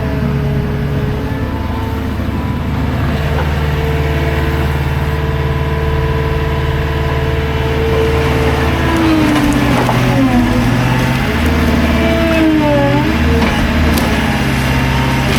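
Skid steer engine running steadily at working speed; from about nine seconds in its pitch dips and rises several times as the machine is worked, then settles steady again.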